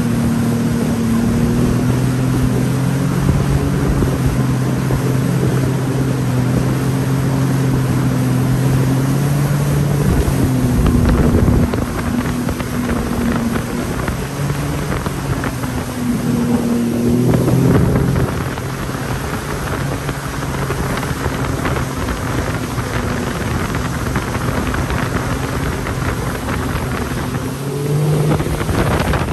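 Jet ski engine running at cruising speed, with wind rushing over the microphone. The engine note eases off about eleven seconds in, swells briefly around eighteen seconds, and picks up again near the end.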